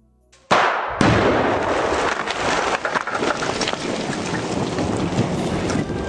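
A large explosion goes off about half a second in, with a second sharp blast half a second later. A continuous rumbling noise full of small crackles follows.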